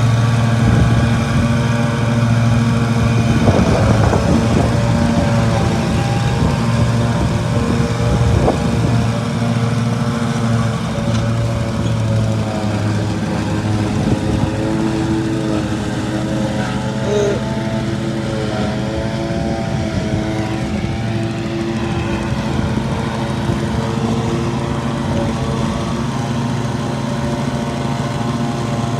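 Riding lawn mower engine running steadily while mowing thick grass, its pitch wavering slightly with load.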